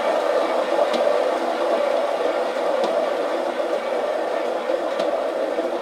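A turntable spinning a painted canvas at speed, giving a steady whir with a few faint ticks.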